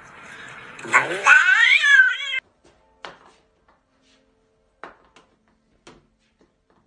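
A cat gives one long, drawn-out yowling meow about a second in, its pitch rising and bending, cut off abruptly after about a second and a half. After that there is near quiet with a few faint knocks.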